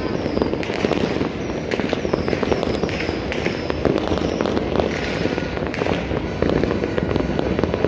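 Many fireworks and firecrackers going off at once across a city: a dense, continuous crackle of pops and bangs, with short high whistles now and then.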